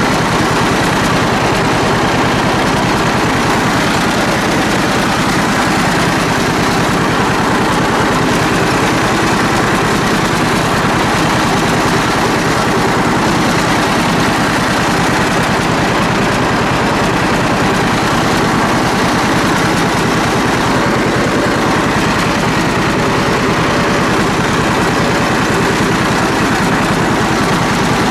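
Old John Deere two-cylinder tractor engine running steadily under way, a rapid, even firing beat.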